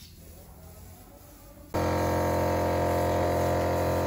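An air compressor's motor starts abruptly about two seconds in and runs with a loud, steady hum of many tones.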